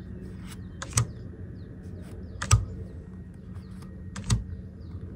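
Pokémon cards being flipped through by hand: a few sharp clicks as the cards are slid and snapped, the three loudest roughly a second and a half apart, over a low steady hum.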